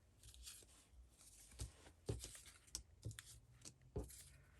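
Faint rustling and scattered light taps of paper pieces and small craft embellishments being handled on a tabletop, with a few sharper clicks.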